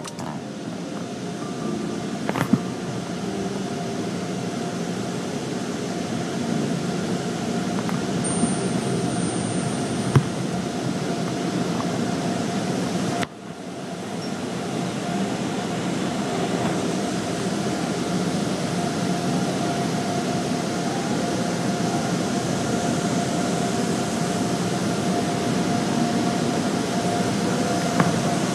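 Steady machinery noise of an automatic tunnel car wash heard from inside the car, with a faint steady hum and a few short clicks. The noise dips briefly about halfway through.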